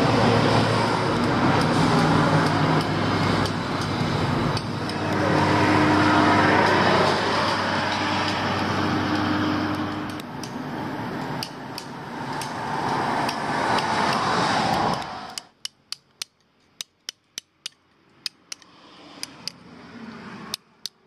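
Road traffic, a vehicle's engine and tyres passing, for about fifteen seconds. It cuts off suddenly to a steel chisel struck with a hammer into stone, sharp metallic clinks about two a second.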